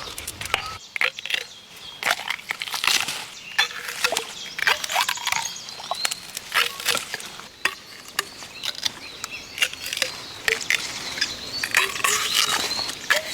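Irregular crisp snapping and rustling of plant stems and leaves as Japanese knotweed shoots are broken off by hand.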